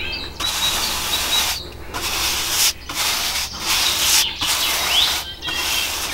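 A bristle paintbrush spreading lacquer over a darkened wooden tabletop: a rasping brush on wood in about six strokes of roughly a second each, with short breaks between them. Birds chirp faintly in the background.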